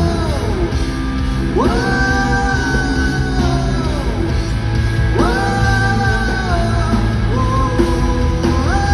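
Live rock band playing, with long held notes that slide up and fall away every few seconds over a steady low beat.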